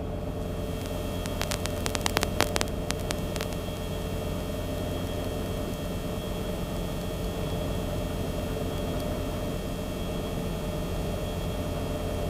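Steady in-flight drone and hum of a Cabri G2 helicopter's engine and rotors heard from the cockpit, with a constant hiss. A string of short clicks and crackles comes in the first few seconds.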